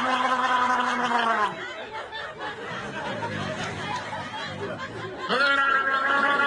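A person snoring loudly: a long, steady droning snore trails off with falling pitch about a second and a half in. A quieter, rougher breath follows, then another droning snore starts near the end.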